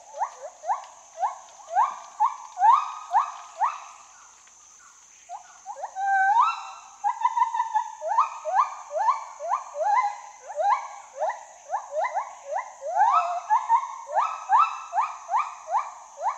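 Lar gibbon singing: a long series of rising hoots, about two or three a second, with a brief lull around four seconds in before the hoots resume, over a steady faint high hiss.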